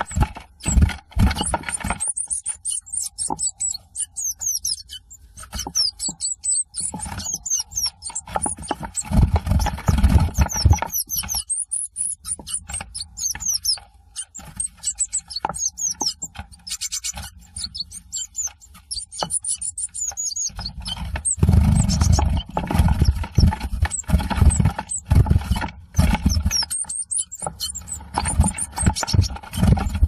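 Two Eurasian blue tits scuffling inside a wooden nest box: wings flapping and feet scrabbling against the wood in dull, bumping rustles, heaviest about ten seconds in and again over the last third. Over it, many rapid, high, thin calls sliding downward.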